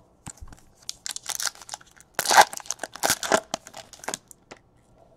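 Foil wrapper of a Topps Gold Label baseball card pack being torn open and crinkled by hand: a run of irregular crackles, loudest in the middle.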